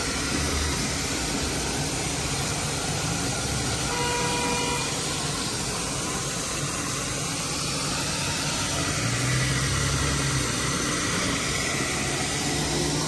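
Open fire hydrant gushing full force, a steady rushing hiss of water spraying across the street. A short pitched tone sounds about four seconds in, and a low engine hum swells briefly near the middle.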